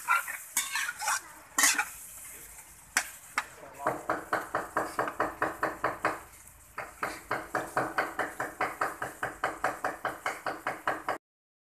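Chopped chicken offal and skin sizzling as they are dry-fried in an aluminium wok on an electric pan, with a metal spatula scraping and clicking against the pan in the first few seconds. From about four seconds in, a steady pulsing of about five beats a second comes from a source that cannot be seen.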